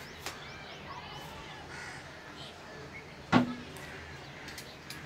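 A crow caws once, a short, loud call about three seconds in, over faint background noise with small bird chirps.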